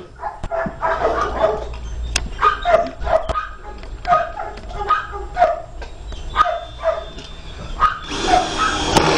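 A dog barking over and over, about two barks a second. Near the end a cordless drill runs for about a second, driving a screw into a wooden beam.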